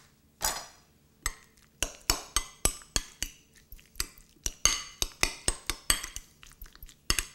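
Metal fork stirring a wet shrimp and mayonnaise mixture in a small glass bowl: a scrape just after the start, then quick, irregular clinks of the fork against the glass, several a second, from about a second in.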